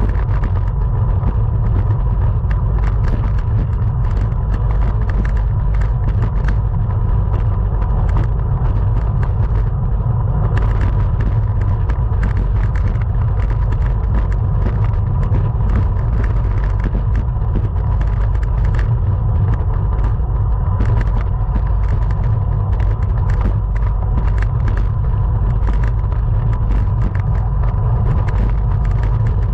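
Steady wind rumble on the microphone of a camera riding on a racing bicycle at speed, with frequent small ticks and rattles and a faint steady whine over it.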